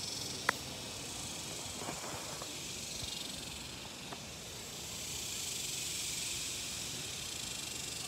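A steady high-pitched insect chorus, typical of cicadas, eases and then swells again. A single sharp click about half a second in is louder than the chorus, with a couple of faint ticks later.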